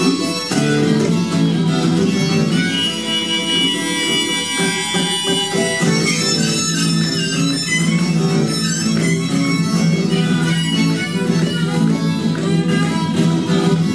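Acoustic blues instrumental break: harmonica played in a neck rack, with sustained wailing notes over steadily strummed and picked acoustic guitar.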